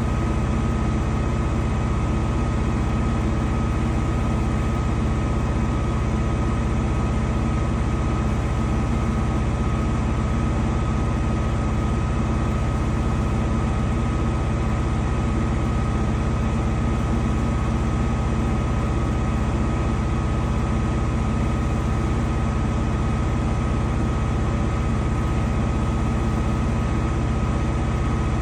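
Danube 20 kg commercial washer-extractor running with a steady motor hum and a constant high whine, unchanging throughout.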